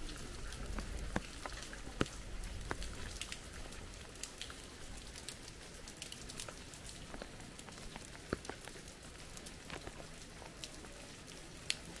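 Irregular light taps and clicks, a few each second at uneven spacing, over a faint steady outdoor hiss.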